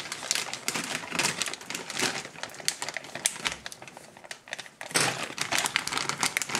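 Crinkling of plastic packaging with quick clicks and taps of small kit parts being unpacked and handled, growing louder about five seconds in.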